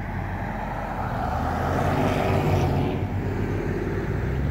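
A car driving past: engine and tyre noise swells to a peak about two seconds in and fades away, over a steady low engine hum.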